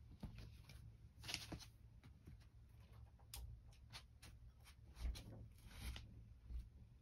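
Near silence: quiet room tone with a few faint, brief rustles.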